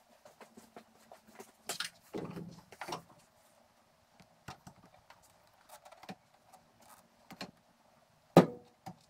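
Windshield glass being set onto its seal bead on a 1969 Camaro and shifted into position by hand: scattered light knocks, taps and scrapes, with a single louder knock near the end.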